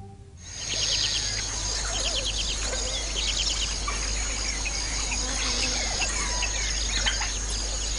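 Bush ambience: many birds chirping and trilling over a continuous high-pitched insect drone, fading in about half a second in.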